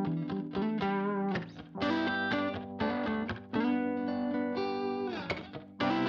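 Background music: a guitar-led instrumental with plucked notes in a steady rhythm.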